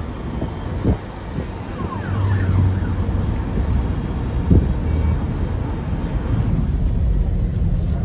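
Low, steady rumble of a moving vehicle, with a few knocks and a louder thump about four and a half seconds in. A brief thin high-pitched tone sounds about half a second in.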